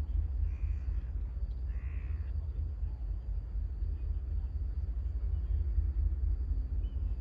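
A bird calling twice, short calls about half a second and two seconds in, over a steady low rumble.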